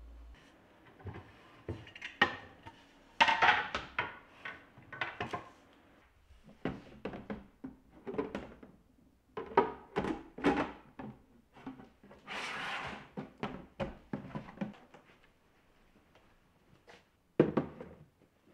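IKEA KUGGIS plastic storage boxes being handled: many short hollow knocks, taps and clicks as a box is lifted and set down, a brief scrape past the middle, and one sharp knock near the end as one box is stacked on another.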